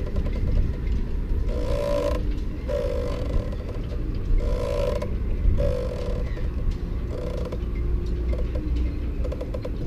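Steady low rumble of wind on the microphone, with a short creak roughly once a second.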